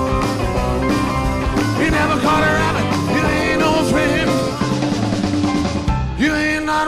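Live rock and roll band playing, with drum kit, bass, guitar and horns.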